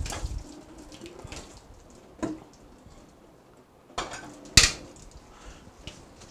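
Pot and metal utensils clanking, four sharp knocks with the loudest about four and a half seconds in.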